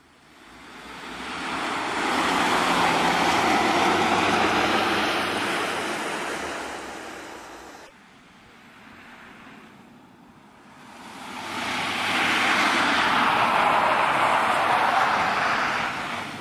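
Suzuki Jimny driving on ice, its engine and tyres swelling up and fading away twice.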